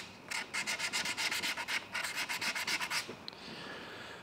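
Sandpaper rubbed by hand over a hydrofoil in quick, short back-and-forth strokes, smoothing epoxy-filled scratches. The strokes stop about three seconds in.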